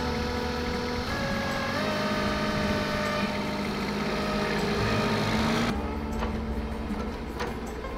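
Compact wheeled loader's engine running steadily under load, its pitch rising about two seconds in as it climbs the dirt ramp. Near the end the sound switches abruptly to a lower, duller working-machine sound with a few knocks.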